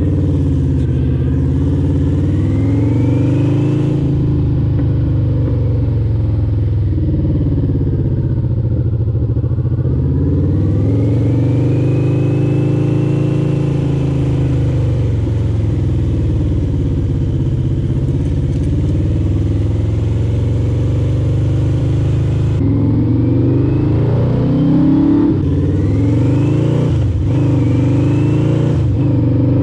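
1986 Yamaha VMAX 1200's V4 engine running under way. Its pitch climbs and drops back again and again as the bike accelerates and eases off.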